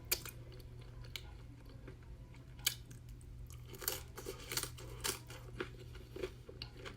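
Close-miked eating sounds: wet chewing, smacking and little mouth clicks while eating pizza dip, irregular and in short clusters, over a faint steady low hum.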